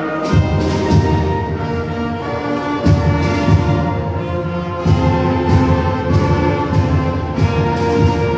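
Youth wind band of woodwinds and brass playing a piece, with sustained chords over a regular low beat. The low instruments come in strongly just after the start.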